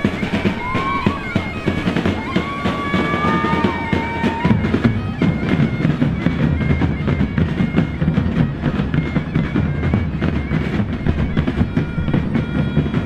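Street drum band of large strap-worn bass drums beating a dense, driving rhythm, with a wind instrument playing held notes and a short melody above the drums.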